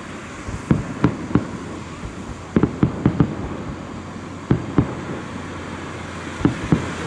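Fireworks shells bursting: about a dozen sharp bangs in irregular groups, including a quick run of four near the middle, over a steady background hiss.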